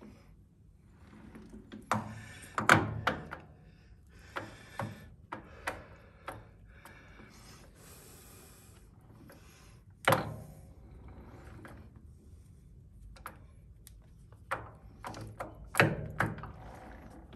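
Colchester lathe headstock gear train being turned slowly by hand at the chuck: a scatter of clunks and knocks, the loudest about two and a half, ten and sixteen seconds in, with a brief hiss near the middle.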